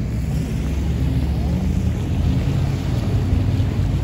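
Outboard motors on bass boats running at low speed with a steady low rumble, with wind buffeting the microphone.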